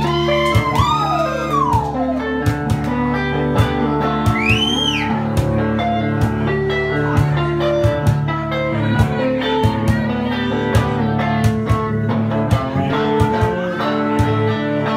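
Live blues band playing: electric guitars over a steady drum beat, with a lead guitar bending a few notes up and back down.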